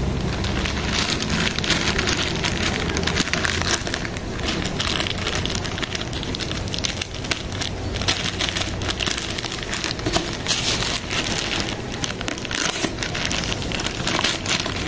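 Plastic courier mailer bag being opened by hand, its plastic crinkling and crackling irregularly throughout.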